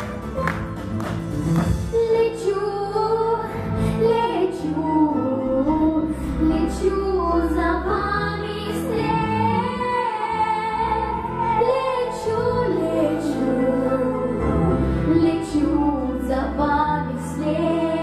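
A young girl singing solo into a microphone over instrumental backing music; her voice comes in about two seconds in, after a short instrumental passage.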